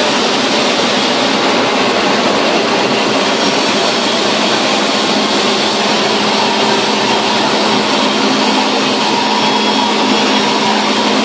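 KFQ paper slitting and rewinding machine running, slitting paperboard and winding it onto rolls: a steady, loud mechanical whir with a constant low hum underneath.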